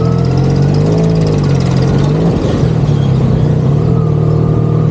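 Motorcycle engine running at a steady pace while riding, its note holding level throughout.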